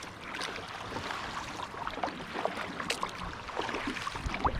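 Water splashing and dripping around a small fishing kayak, with many short, irregular splashes over a steady rush of wind and water.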